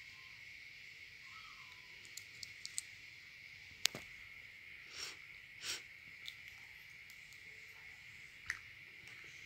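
Small sticky clicks and a couple of short squelches as a lip-gloss applicator wand dabs into and pulls out of clear slime, the sharpest click about four seconds in, over a faint steady high-pitched hum.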